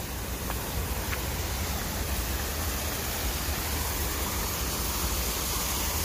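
Steady rushing of water from a small waterfall cascading over rocks, growing slightly louder.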